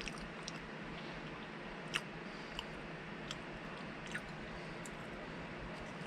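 A man chewing a mouthful of soft-baked peanut butter and strawberry jelly bar: scattered small sharp mouth clicks, the sharpest about two seconds in, over a faint steady hiss.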